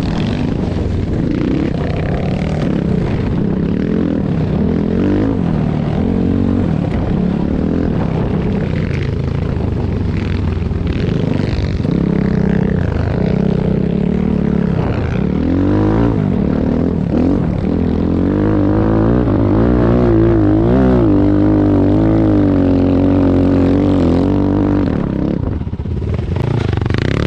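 Enduro motorcycle engine running under load, its revs rising and falling constantly.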